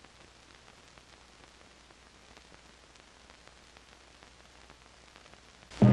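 Faint hiss and scattered crackling clicks, with a low hum, from an old film soundtrack running over the leader. Loud music cuts in suddenly near the end.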